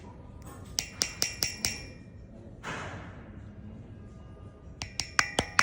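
Quick runs of sharp metallic taps that ring briefly: about five light strikes near the start, a short swish a little later, then another run of about five near the end.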